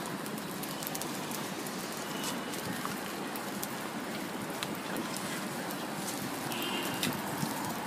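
Steady sizzling of two thin square pancakes cooking on a hot flat griddle, with scattered light crackles.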